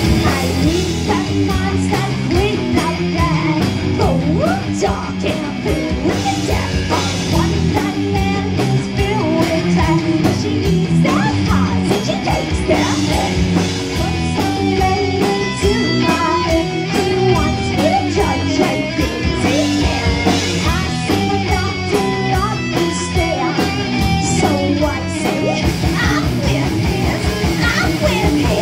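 Heavy metal band playing live: distorted electric guitars, bass and a drum kit, with a female singer's vocals over them. Near the end the drums change to a fast, even pattern of hits.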